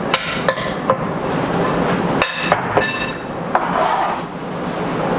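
Utensils clinking and knocking against a glass bowl as a salad is tossed: about six separate strikes, the loudest a ringing clink a little over two seconds in.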